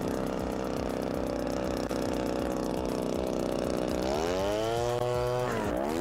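Huter GB-26V petrol leaf blower's one-horsepower two-stroke engine running steadily, then revving up about four seconds in and falling back near the end.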